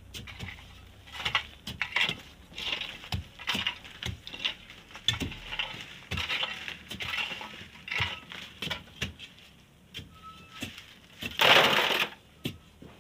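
Long iron digging bars and a hoe striking, scraping and prying into a packed volcanic sand wall, with irregular knocks and gritty scrapes as sand and small stones break loose. Near the end comes one louder rush about a second long.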